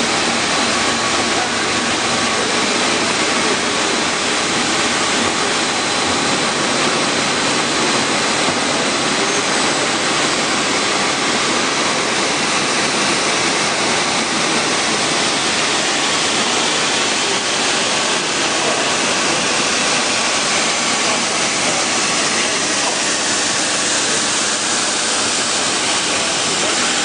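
A PVC edge band extrusion line running: a loud, steady rushing noise of the machinery, with a faint high whine held throughout.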